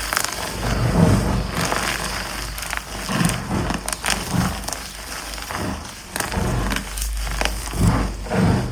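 Dyed gym chalk blocks being crushed, an irregular series of crunches and sharp cracks as the blocks break and crumble.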